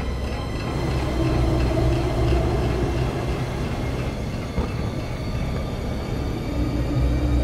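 Dark ambient drone: a heavy, steady low rumble with a wavering mid tone and faint sustained high tones over it.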